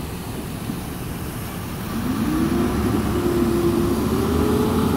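A motor vehicle's engine running over a steady low rumble, its note coming in about two seconds in and rising slowly in pitch as it gets louder.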